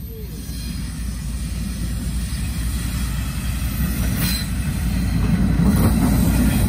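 Norfolk Southern freight train rolling on the rails, a low rumble growing steadily louder as it draws near. There is a brief high squeal about four seconds in.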